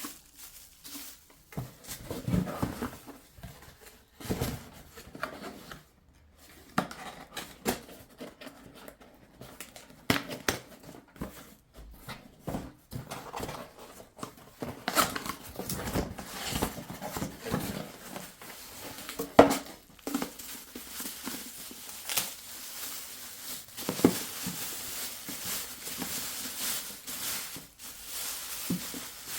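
Scattered clicks, taps and rustles of objects being handled, with a steady hiss coming in for the last several seconds.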